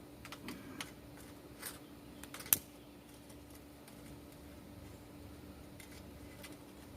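A lighter clicked several times to light a lump-charcoal fire: a few sharp clicks in the first three seconds, the loudest about two and a half seconds in. After that only a faint steady hum remains.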